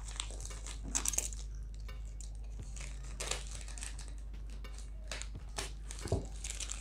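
Grey plastic courier mailer bag crinkling and crackling as a blue utility knife slits it open, in short irregular bursts of rustle.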